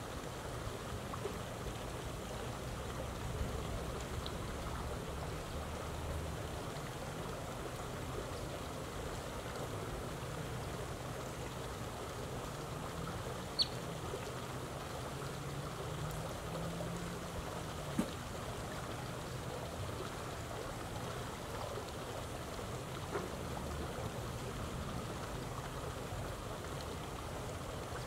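Steady outdoor background hiss with a low, wavering hum underneath. One short high chirp sounds about halfway through, and a faint click comes a few seconds later.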